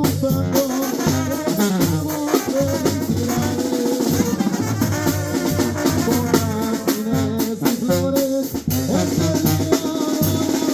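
Live tamborazo band music: brass playing a melody over a steady beat of bass drum and snare with cymbals.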